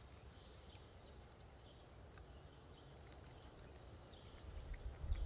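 Gray squirrel gnawing and chewing a walnut held in its paws: faint, scattered crunching clicks. A low rumble builds near the end.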